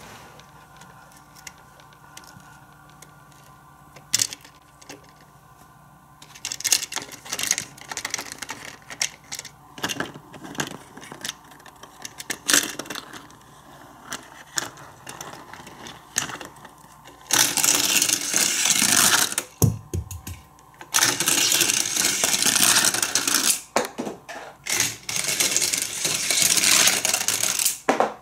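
Plastic hand-crank winch on a Matchbox toy playset being turned, reeling up its string with a clicking ratchet. Quiet at first with a single click, then scattered clicks, turning into a loud, dense rattle about two-thirds of the way in.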